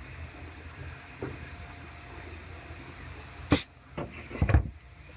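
A few knocks in a workshop: a small one about a second in, a loud sharp one past the middle, then a quick cluster of thumps, over a steady low hum.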